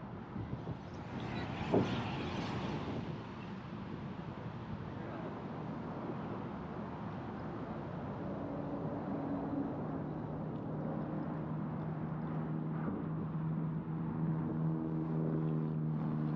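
Steady outdoor rushing noise, with a motor vehicle's engine hum that comes in about halfway through and grows louder toward the end. There is one sharp click about two seconds in.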